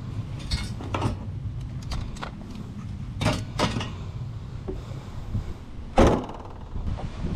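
Car with its engine running low and steady, with several sharp clunks and knocks in and around the car; the loudest comes about six seconds in.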